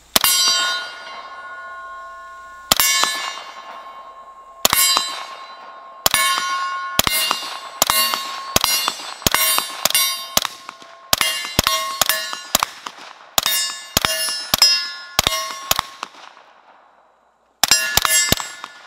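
A suppressed 9mm CZ Scorpion Evo 3 S2 Micro is fired through a SilencerCo Hybrid 46 with subsonic ammunition. Each shot is followed by the ringing clang of a steel target being hit. The shots come singly at first, then in quicker runs, and end in a fast string of about five near the end.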